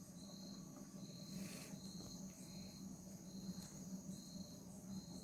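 A cricket chirping faintly in a regular rhythm, somewhat under two chirps a second, over a low steady hum.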